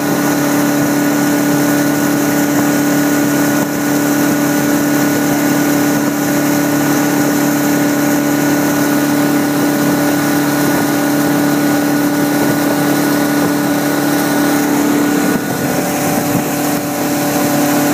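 Towboat engine running steadily at barefoot-skiing speed, about 36 mph, a constant drone under a loud, steady rush of spray and wind. The engine note shifts slightly about two seconds before the end.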